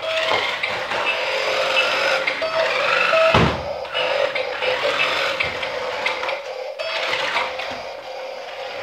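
Battery-powered remote-control toy car running, its small electric motor whirring and the plastic body rattling, with one hard thump about three and a half seconds in as the car comes down off its ramp jump.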